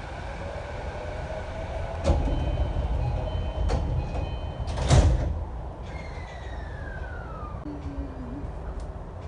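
JR East E233-5000 series commuter train's electric sliding passenger doors in operation. They start moving about two seconds in, the door chime sounds, and a loud thud comes about five seconds in as the doors reach the end of their travel. A whine falling in pitch follows.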